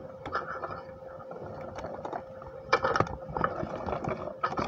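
Close handling noise from hands moving right by the microphone: scattered taps and rustles, loudest a little under three seconds in and again near the end, over a faint steady hum.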